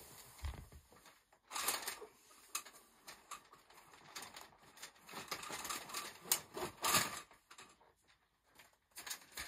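Irregular clicks, knocks and rattles of a retractable fabric door's spring-loaded cartridge being pulled forward by hand and worked free of its aluminium frame.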